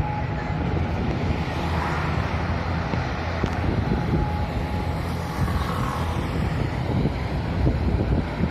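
Strong wind buffeting the microphone, a steady gusty rumble.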